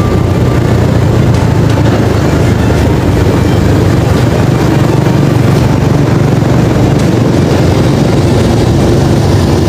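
Steady engine and road noise from a moving vehicle, a constant low rumble with no break.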